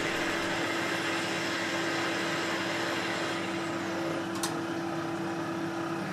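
Tormach 8L CNC lathe spindle running while the cutoff tool parts off an aluminium workpiece under coolant spray: a steady whine and lower hum over the hiss of the coolant. There is a single sharp click about four and a half seconds in, and the whine cuts off near the end.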